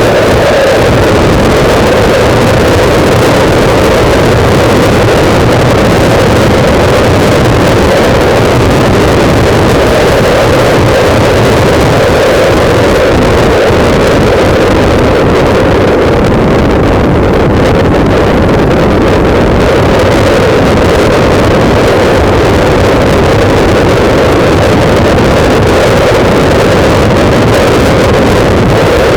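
Loud, steady wind noise buffeting the microphone of a camera mounted on a moving motorcycle, an unbroken rushing roar.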